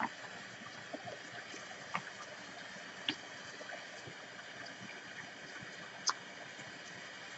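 Quiet room hiss with a few faint, short clicks of tarot cards being shuffled and laid down on a table.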